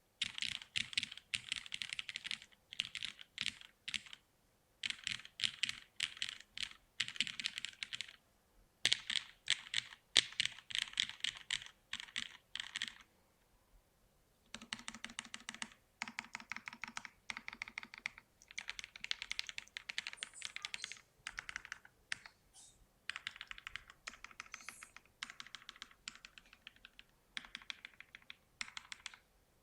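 Noxary 280 mechanical keyboard being typed on: lubed Cherry MX Black Hyperglide linear switches in a polycarbonate plate under GMK keycaps. The keystrokes come in quick runs broken by short pauses.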